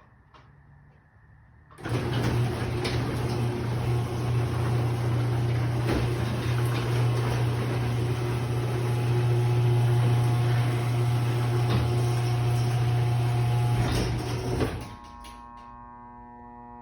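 Electric garage door opener running with a steady low hum and mechanical noise for about thirteen seconds, starting about two seconds in and cutting off near the end as the door is lowered. The owner thinks the old motor is wearing out.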